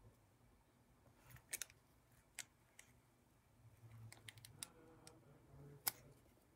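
Faint, scattered sharp clicks and light rustling of small paper cut-outs being handled and pressed down onto a card.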